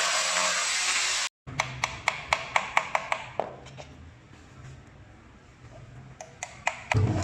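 A power tool running steadily. It cuts off abruptly about a second in, followed by a quick run of sharp light knocks, about four or five a second. A few scattered knocks come later, with a dull thud near the end.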